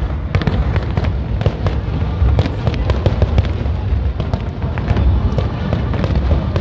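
Aerial fireworks bursting overhead in quick succession: a dense, irregular string of sharp bangs over a continuous low rumble.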